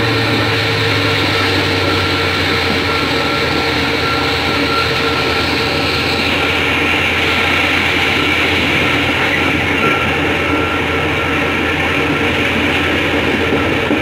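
Diesel passenger train running at speed, heard from inside the carriage: a steady engine drone under the noise of the wheels on the rails.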